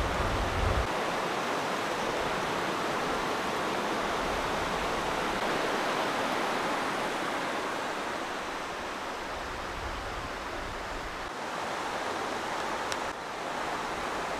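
Steady rush of a flowing creek, with low wind rumble on the microphone in the first second.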